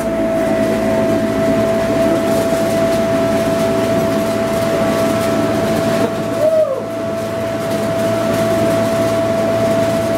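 Blower fan of an inflatable cash-grab money booth running steadily, blowing paper bills around inside, with a constant hum over a rushing-air noise. A short rising-and-falling squeal about six and a half seconds in.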